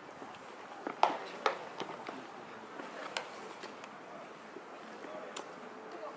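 Ballpark practice sounds: two sharp knocks about a second in, half a second apart, the first the loudest, then scattered light ticks over faint distant voices.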